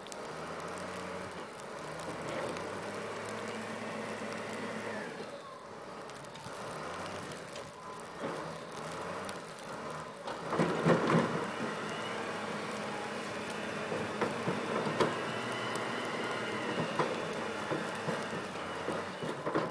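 Wheel loader's diesel engine running under load, surging louder about ten seconds in, with scattered knocks and clanks later on.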